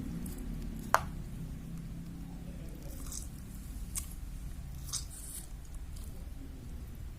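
Half a lime being squeezed by hand, the fruit squishing softly as the juice is pressed out, with a sharp click about a second in and a few fainter clicks later.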